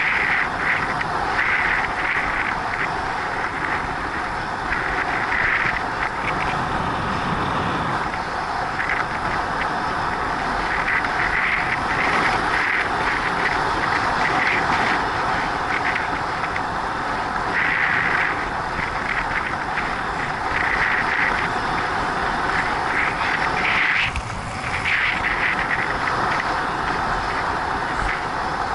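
Steady rush of wind over the microphone and tyres rolling on asphalt from a bicycle moving at about 40 km/h, the level swelling and easing every few seconds.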